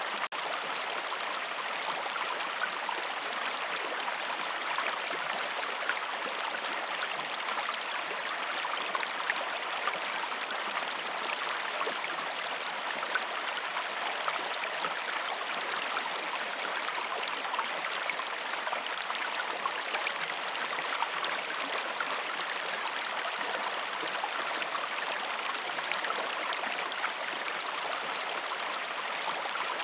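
A river flowing steadily, with an even sound of running water and no other sounds standing out.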